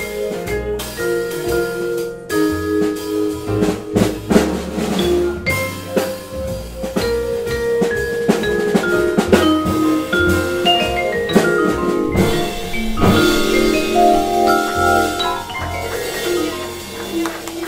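Live small-group jazz: a vibraphone played with two mallets carries the melody in quick runs of ringing notes, over walking upright bass and a drum kit.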